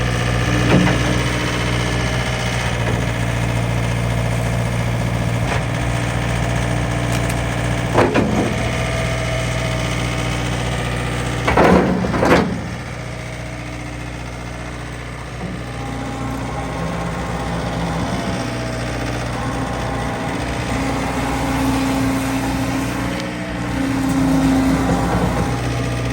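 John Deere 323E skid steer's diesel engine running steadily. There is a short loud burst of noise about eight seconds in and a louder one lasting about a second near the middle, after which the engine note changes slightly.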